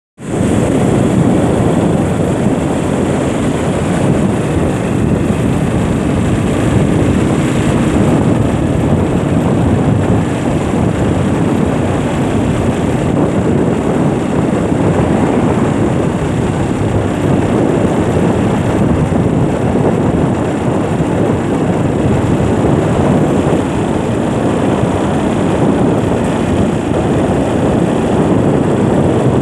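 Steady, loud rumble of road and wind noise from a moving vehicle, with no distinct engine note.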